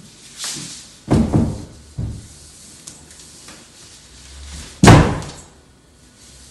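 Heels banging against an interior door as a person kicks up into a handstand against it: one loud bang a little before five seconds in, after a few lighter thumps of hands and body on the floor.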